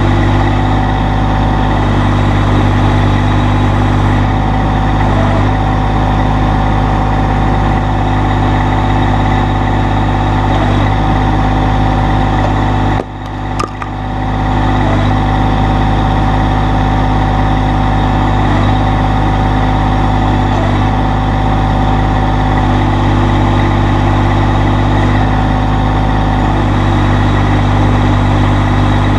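Massey Ferguson GC1720 sub-compact tractor's three-cylinder diesel engine running at a steady speed, with a brief drop in loudness about halfway through.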